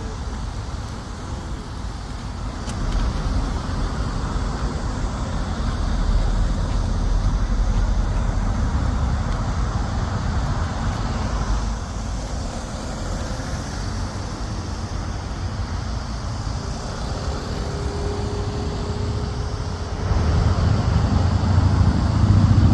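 Steady road traffic noise, the rush of passing cars, louder from about three seconds in and again near the end.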